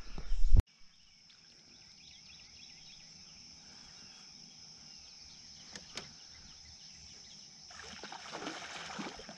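A brief low rumble cuts off abruptly, leaving quiet open-water ambience with a steady high-pitched buzz. About eight seconds in, a hooked bass splashes and thrashes at the surface while it is played on a bent rod.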